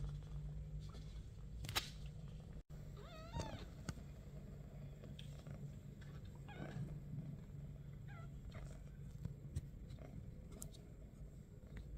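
Four-week-old British Shorthair kitten meowing: a wavering high call about three seconds in, then shorter meows around seven and eight and a half seconds. A few sharp clicks, the loudest near the start and near the end.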